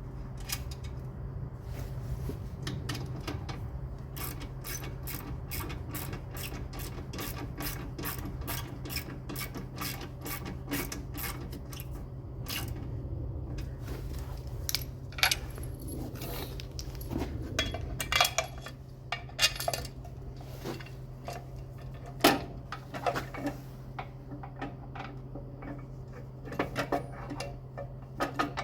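Ratchet spanner clicking steadily, about two to three clicks a second, as bolts are turned. From about halfway on come irregular metal clinks and knocks of tools and parts, over a steady low hum.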